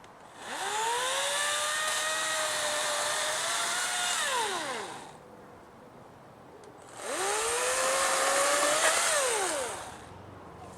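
Battery-powered electric chainsaw run up twice, each time with a quick rising whine, held for a few seconds, then winding down as the trigger is released.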